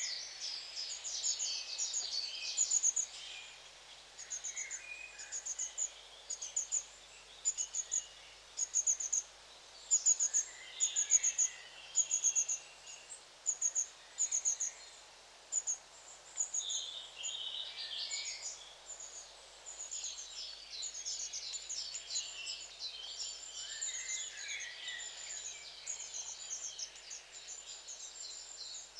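A flock of long-tailed tits calling: thin, high notes in quick groups of two or three, building into a dense, overlapping twittering a bit past halfway.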